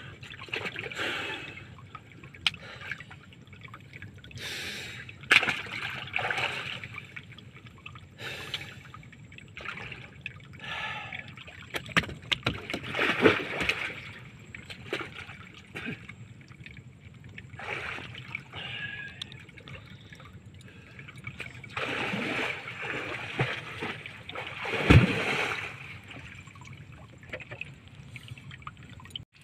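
Irregular splashing and sloshing of water as a man wades chest-deep and feels for fish by hand, with a sharper thump about 25 seconds in.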